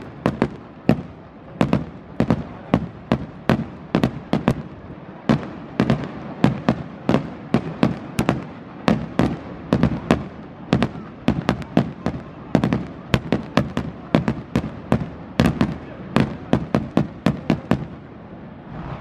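Aerial fireworks going off: a rapid string of sharp bangs from shells bursting overhead, about two or three a second, with a short lull near the end.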